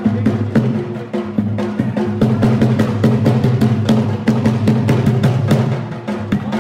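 Attan dance music: a dhol drum beating a fast, even rhythm over a steady, low pitched drone.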